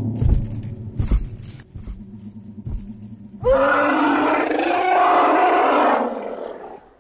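A few heavy thuds over a low rumble, then about three and a half seconds in a loud T. rex roar sound effect, rising at the start, held for about two and a half seconds and fading away.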